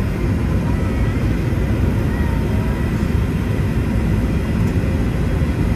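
Steady roar of a jet airliner heard from inside the passenger cabin: engine and airflow noise, deepest in the low range.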